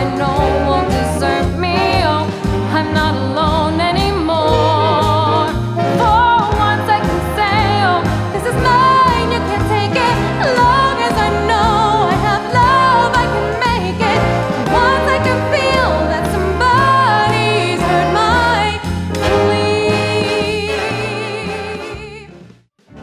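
Big band swing music playing over a steady bass-and-drums beat, with pitched lines that waver in vibrato. The tune ends about a second before the end, cutting to a brief gap.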